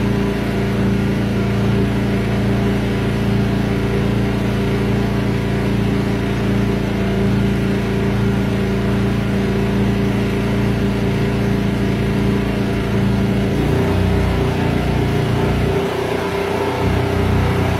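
Motorboat engine running steadily under way, a steady pitched hum over a hiss of wind and water. About three-quarters of the way through the engine note shifts and wavers.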